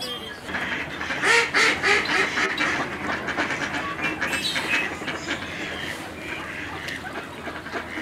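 Mallard ducks quacking repeatedly, a flock calling over one another, loudest in the first couple of seconds.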